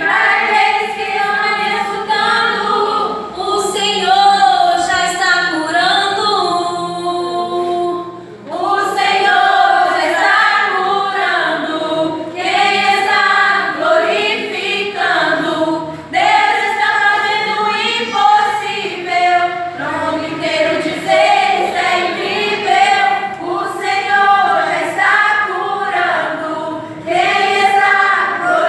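Worship group singing a praise song together, several voices in phrases.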